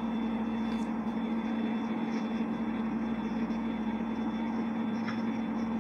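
Steady low electrical hum under an even hiss of background noise, with no change throughout: the room tone of the recording.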